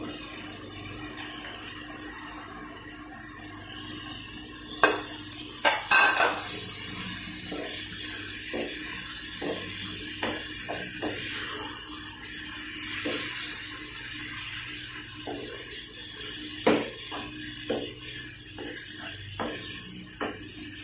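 Raw chicken pieces sizzling in hot oil and masala in a frying pan while a wooden spatula stirs them, scraping and knocking against the pan. The knocks come scattered, loudest about five to six seconds in and again past sixteen seconds.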